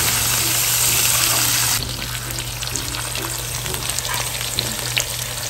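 T-bone steaks sizzling in hot oil and pan juices in a frying pan, a steady frying hiss that drops in level about two seconds in.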